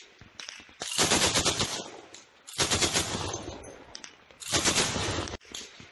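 Automatic gunfire: three sustained bursts of rapid fire, each about a second long and about two seconds apart, each tailing off as it fades. Softer scattered shots come before the first burst.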